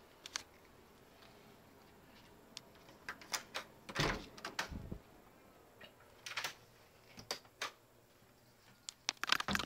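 Hotel room door being opened and handled: a run of sharp latch clicks and knocks, with a heavier thump about four seconds in and another cluster of clicks near the end.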